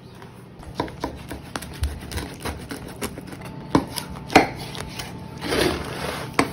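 Large kitchen knife slicing through a deep-dish pizza on a wooden butcher-block board: a run of crunches and knocks, with two sharp ones in the middle and a longer crunching stretch near the end.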